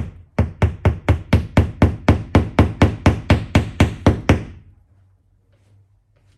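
A mallet tapping a wall anchor into a drilled hole in the wall: a quick, even series of sharp knocks, about four a second, that stops about four and a half seconds in as the anchor is driven flush.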